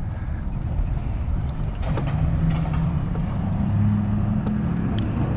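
Road traffic: a motor vehicle's engine hum, low and steady from about two seconds in, over a constant low rumble of wind on the microphone of a moving bicycle, with a few faint clicks.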